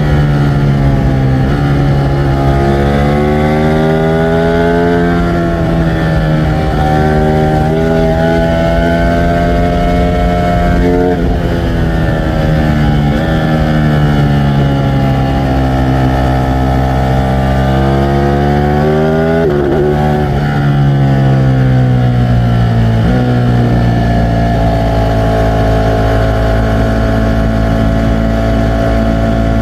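Ducati Streetfighter V4 S's 1,103 cc V4 engine running under load, its note rising in pitch and dropping back several times. It then eases down and holds a steady note over the last few seconds.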